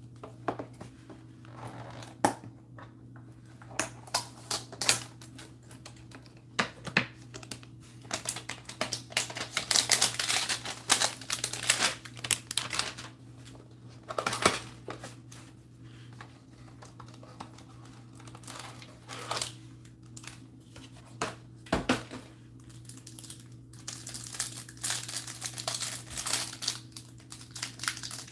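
Clear plastic wrapping of Select Football hanger boxes crinkling and tearing as the boxes are unwrapped and opened, in irregular bursts that are busiest about ten seconds in and again near the end, with a few sharp knocks of cardboard boxes on the tabletop.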